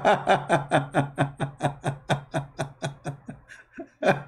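A man laughing hard, a long run of quick "ha-ha" pulses at about four or five a second, tailing off and then breaking out loudly again near the end.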